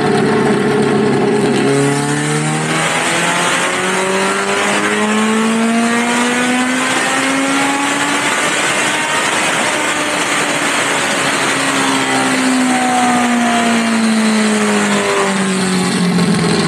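Ford Escort RS1800 race car's 1840cc Cosworth BDA four-cylinder running loud under load on a rolling road. It holds a steady pitch, then the revs climb slowly for about six seconds, hold, ease back down, and drop to a steady lower speed near the end.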